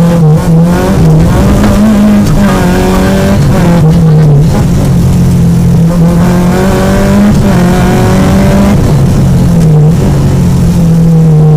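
Peugeot 205 GTI rally car's four-cylinder engine heard from inside the cockpit at full effort, loud, its pitch climbing through the gears and dropping again several times, falling away near the end as the car slows.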